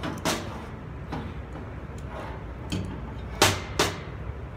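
Several sharp metal clicks and taps as a valve spring and retainer are worked on by hand on a Honda GX390 cylinder head. The loudest two come close together about three and a half seconds in.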